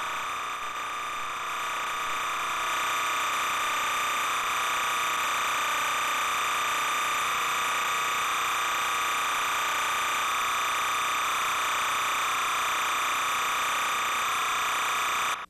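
Steady, high-pitched line-up test tone with a buzzy edge, the kind that accompanies a tape slate, holding unchanged and cutting off suddenly near the end.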